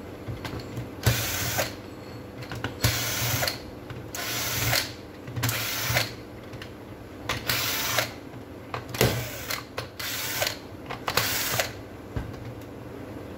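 Cordless impact driver backing out the screws of a Makita HP1640K hammer drill's housing: about eight short bursts of rattling, each roughly half a second, with pauses between them.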